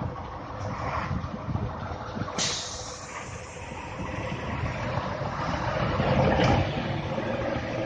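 KAMAZ trucks' diesel engines running hard under load while towing another vehicle on a cable. The sound changes abruptly about two and a half seconds in.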